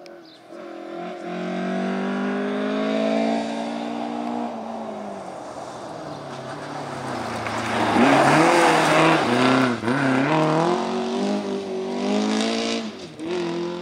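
Rally car engine accelerating hard, its note climbing, then passing close and loud about eight seconds in with a rush of tyre and exhaust noise. After that the revs rise and fall several times.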